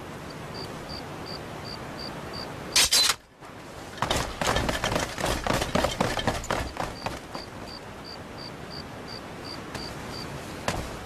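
Night insects, likely crickets, chirping in a steady high pulse about three times a second. About three seconds in, a sudden loud crash cuts through and drops away briefly, then a rapid run of loud clattering knocks lasts about three seconds before the chirping returns.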